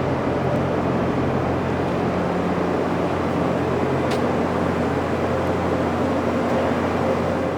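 Mattison grinder running steadily: a constant electric-motor hum under a broad, even whirring noise.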